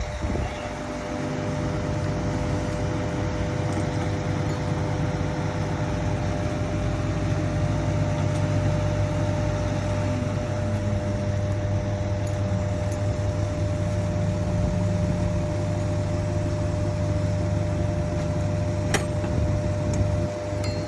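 A motor-driven machine running steadily with an even hum, and one sharp click near the end.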